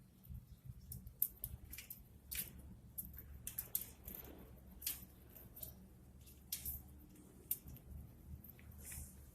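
Budgies feeding: faint, irregular clicks and ticks of beaks pecking and cracking at food, with a low steady hum underneath.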